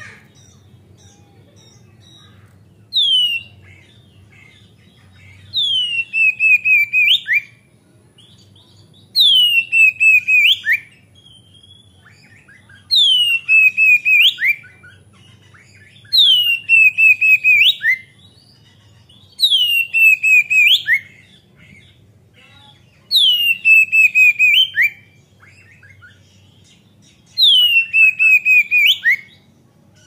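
A male oriental magpie-robin (kacer) sings loudly, repeating the same phrase about every three and a half seconds. Each phrase is a falling whistle that runs into a fast warble and ends in a sharp rising note.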